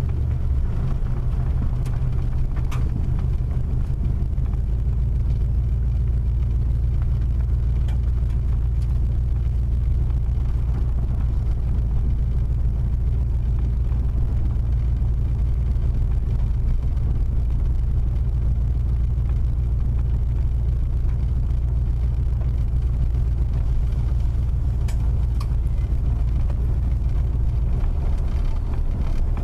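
Steady low rumble of a car's tyres and engine on a dirt road, heard from inside the cabin, with a few faint clicks.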